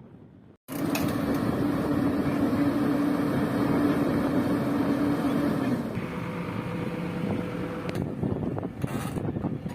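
Heavy diesel vehicle engine running under load, starting abruptly about half a second in, with its steady tone dropping about six seconds in.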